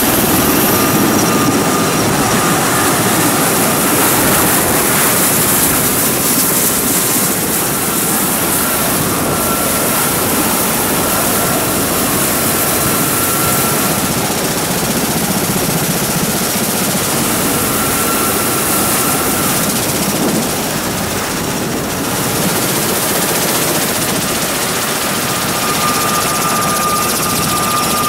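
MV-22 Osprey tiltrotor running on the ground, its twin turboshaft engines and proprotors turning: a loud, steady rush of rotor and turbine noise with a thin high whine that comes and goes.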